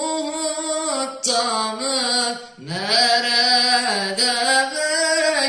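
A young man sings a Turkish ilahi solo and unaccompanied, drawing out long ornamented notes with a wavering pitch. About two and a half seconds in he breaks off briefly for breath, then starts a new phrase that slides up into its note.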